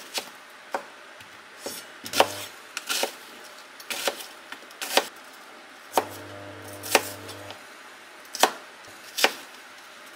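Chef's knife chopping a peeled onion on a cutting board: about a dozen sharp knocks of the blade against the board at an uneven pace, roughly one to two a second.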